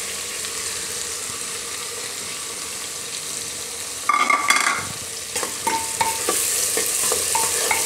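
Chopped onions sizzling in hot oil in an aluminium pressure cooker used as a pan for the tempering, a steady frying hiss. About four seconds in comes a short ringing metal clank, then lighter clinks as a spoon stirs against the pot.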